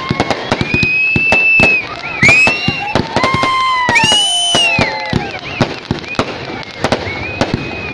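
Ground fireworks crackling with a fast, irregular run of sharp pops, and whistles that rise and fall several times, each lasting under a second.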